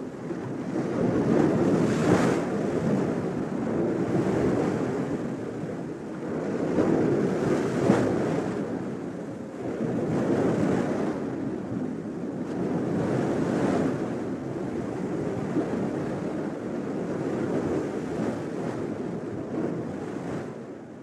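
Ocean surf: waves washing in, the sound swelling and easing every few seconds, fading out near the end.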